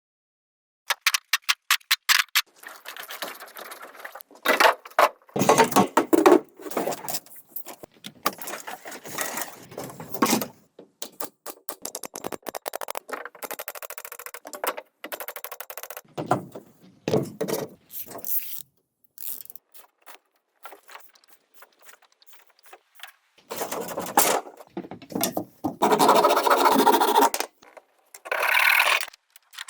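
Irregular scraping, rubbing and clicking of hand work on bamboo, starting with a run of rapid clicks about a second in, with a few quiet gaps and louder scraping near the end.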